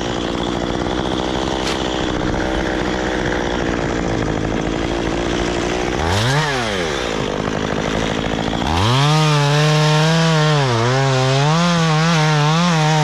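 Stihl chainsaw running: revved briefly about six seconds in, then held at full throttle from about nine seconds in, its pitch repeatedly dipping and recovering as the chain bites into wood.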